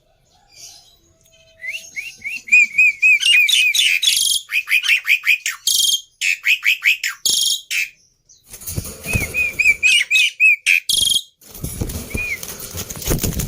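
Jalak starling calling: quick runs of short whistled notes mixed with harsh, rasping bursts, in several phrases with brief pauses. From a bit past halfway a rustling noise, like wing flutter, runs under the calls.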